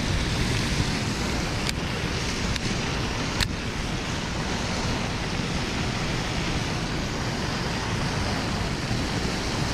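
Steady rushing noise of wind buffeting the microphone mixed with splashing fountain water, with a few light clicks.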